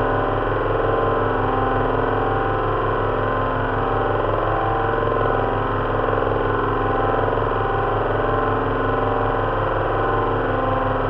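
Simulated drone of an Avro Lancaster's four Rolls-Royce Merlin V12 engines running together. It is built from loudspeaker pulses in each cylinder's firing order, mixed with fan-heater noise standing in for the propellers. The sound is a steady, even hum with a fast low pulsing beat and does not change.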